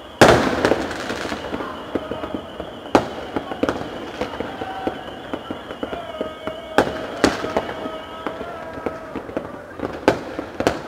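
Fireworks and firecrackers going off: one very loud bang right at the start, then irregular sharp cracks and pops, with bigger bangs around three, seven and ten seconds in.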